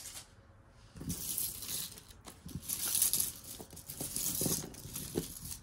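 Costume jewelry being handled: chains and beads rattling and clinking against one another, a jingle full of small clicks that starts about a second in.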